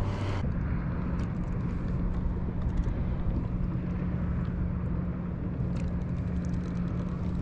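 A motor engine running steadily: a constant low hum over a rumble. About half a second in, the hum abruptly shifts to a higher steady pitch.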